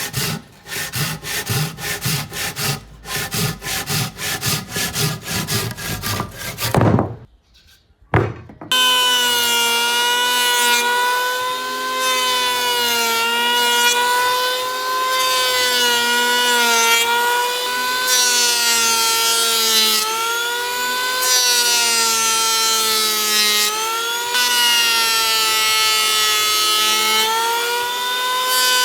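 Wood being hand-sawn in quick, even back-and-forth strokes, about three a second, for the first several seconds. After a brief pause an electric power tool starts and runs steadily, its whine wavering slightly in pitch.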